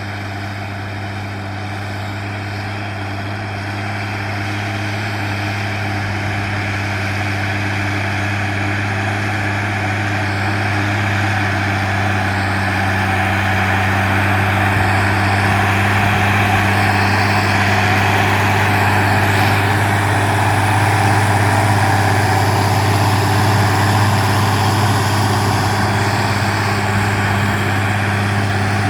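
Zetor 16245 tractor's diesel engine running steadily under load while pulling a disc harrow, a low, even hum that grows gradually louder over the stretch.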